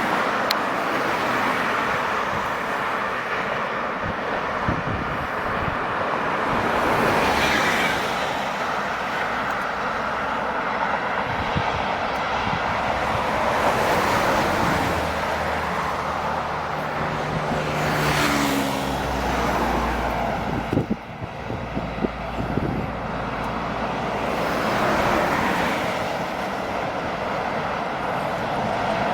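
Excavator working: its engine runs steadily under load, the pitch shifting as the machine works partway through, with a few sharp knocks about two-thirds of the way in.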